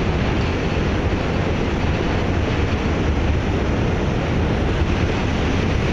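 New York City subway train crossing the Manhattan Bridge close by, a loud steady rumble and rattle with no let-up.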